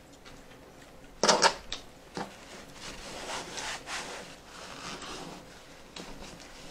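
Close-up eating sounds of people eating roast chicken with their hands: chewing and mouth noises with small clicks. A louder, rough rubbing scrape lasts about half a second, just over a second in.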